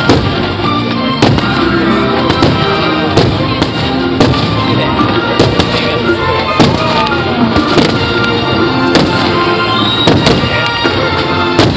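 Aerial firework shells bursting with sharp bangs about once a second, over loud music.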